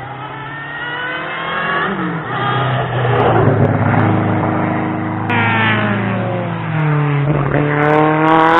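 Race car engine accelerating hard up the hill, its pitch climbing through each gear and dropping at every upshift, growing louder as it approaches. It is loudest near the end, with a steep rise in pitch.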